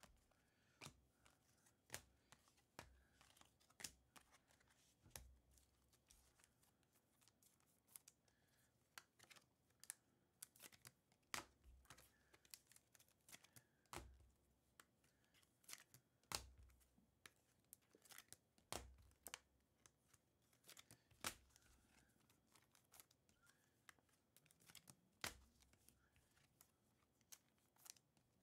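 Faint handling of baseball trading cards: irregular soft clicks and slides as cards are flipped through and set down, with a few duller taps.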